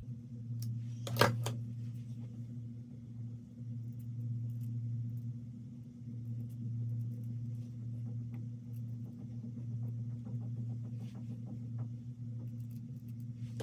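A sharp snip of scissors cutting through wig lace about a second in, then faint light ticks as the lace is trimmed, over a steady low hum.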